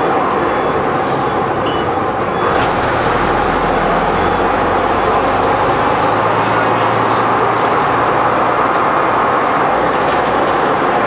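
Bristol VR double-decker bus running along, heard from inside: a steady drone of engine and road noise. A deeper engine hum comes in about three seconds in and fades a few seconds later.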